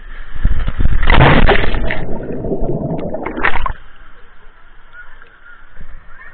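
Water splashing and churning as a rider shoots off the end of a water slide into the pool with the camera in the water, loudest in the first two seconds; it stops abruptly about four seconds in, leaving a fainter background din.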